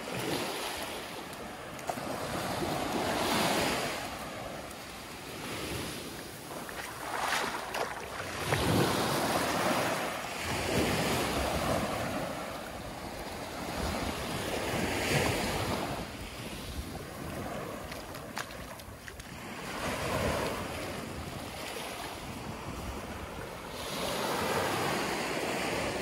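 Small ocean waves washing up and breaking on a sandy beach, the surf swelling and fading every few seconds.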